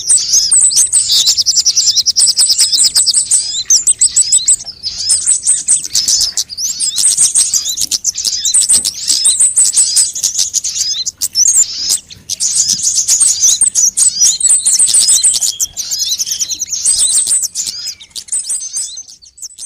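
Sunbirds (the 'kolibri' of Indonesian bird-keepers) singing on a bird-lure recording: dense, high-pitched rapid chirps and trills, several birds overlapping, thinning out and fading near the end.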